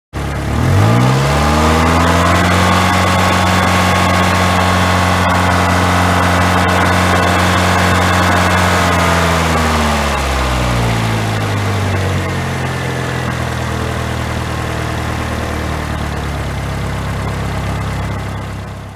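Saturn car engine revving up within the first second or so and holding steady at raised speed, then about ten seconds in the revs fall away and it settles into a steady idle.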